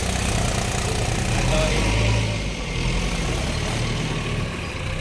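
Heavy diesel engine of a tractor or backhoe running steadily, its low note swelling briefly about two seconds in.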